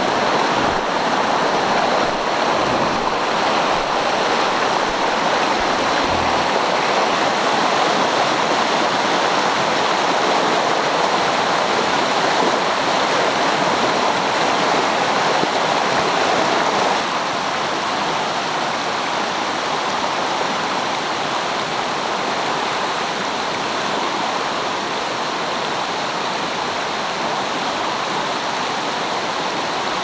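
Shallow mountain river rushing over rocks and small rapids, a steady dense rush of water that drops a little in loudness about halfway through.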